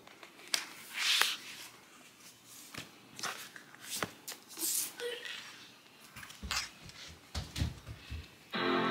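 Packing paper rustling and scattered handling clicks as a laptop is lifted out of its cardboard box and set down, with a few soft low thumps. Music comes in near the end.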